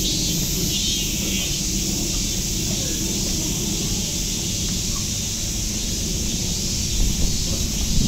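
Cicadas singing in the trees: a steady, dense high-pitched drone over a low background rumble, with a few low bumps near the end.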